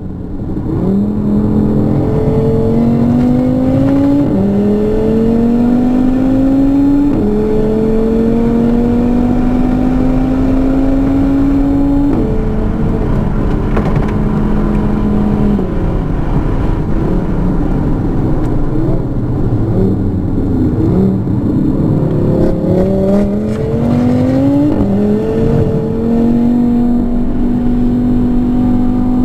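2018 Audi RS3's turbocharged five-cylinder on a stage 2 flex-fuel tune, heard from inside the cabin at full throttle on track. The engine note climbs and drops back at upshifts about four and seven seconds in, holds high, then turns uneven through braking and downshifts past the middle. It climbs again with another upshift near the end.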